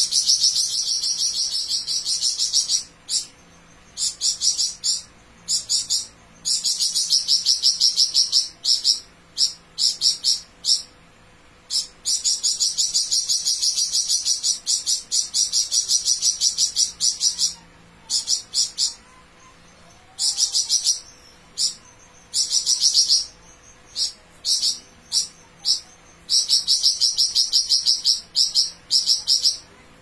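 Caged flamboyan songbird in full song: rapid, high-pitched buzzing trills in long phrases of up to several seconds, broken by short pauses.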